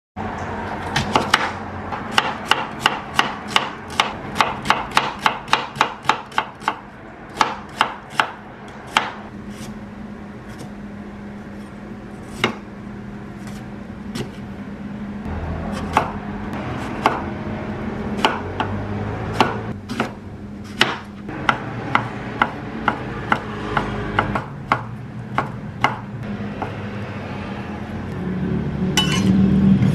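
Chef's knife cutting eggplant and fish cake on a wooden cutting board. The knife strikes the board quickly and evenly, about three times a second, then cuts come slower and more spread out. A low steady hum runs underneath.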